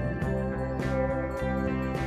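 Background music: sustained instrumental notes that change every fraction of a second, with a regular beat of sharp strikes.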